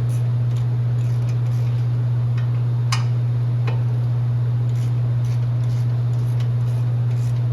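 A steady low hum at one unchanging pitch, with faint scattered ticks and clicks and one sharper click about three seconds in.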